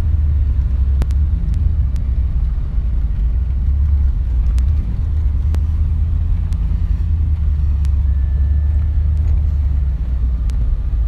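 Steady low rumble of a truck's engine and tyres heard from inside the cab while it drives slowly over a snowy road, with faint scattered ticks throughout.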